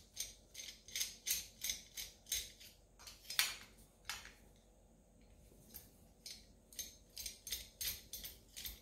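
Hex engine screwdriver working the cylinder-head screws loose on a small nitro RC engine: quick small metallic clicks about three a second, pausing for a second or so near the middle, then starting again.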